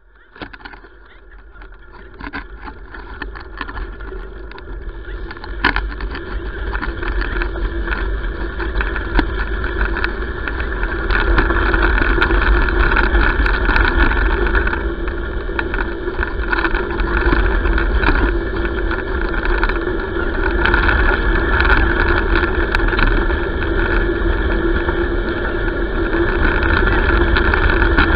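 Bicycle with knobby tyres rolling fast over a gravel road: steady tyre hum and rattle with heavy wind rumble on the handlebar-mounted microphone, fading in over the first few seconds.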